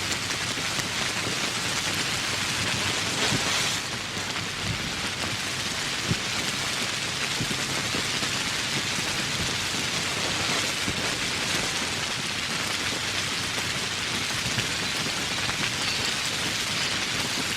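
Steady rain falling, with a brief swell about three seconds in and an occasional sharper drop.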